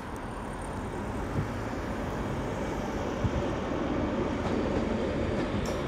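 A train rolling through a rail yard: a steady low rumble that grows slightly louder, with a few faint clicks.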